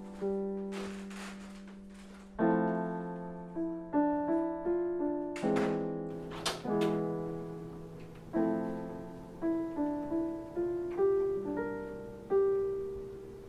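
Slow solo piano score: single notes and chords struck every second or so and left to ring and fade, with a few faint clicks among them.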